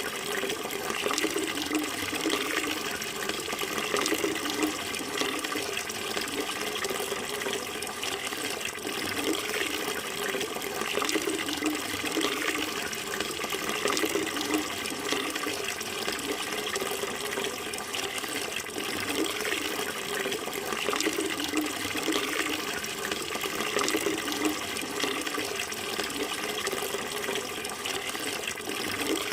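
Water flowing steadily in an even, continuous rush with small ripples of splashing.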